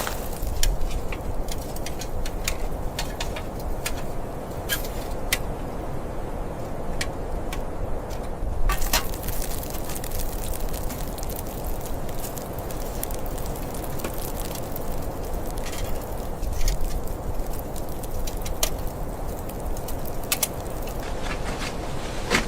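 Wood fire crackling: irregular sharp pops and snaps, a few louder ones, over a steady low rush.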